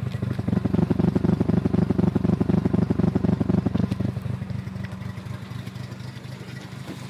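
Mazda RX-7 FD3S's twin-turbo 13B rotary engine running with a misfire. About half a second in it gets louder for roughly three seconds, then drops back to a steady idle. The engine builder thinks the misfire is probably just a spark plug.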